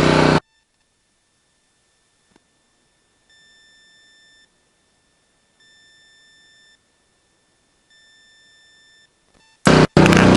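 Near silence broken by three faint, evenly spaced electronic beeps, each a steady tone about a second long. A loud sound cuts off sharply at the very start, and another starts abruptly near the end.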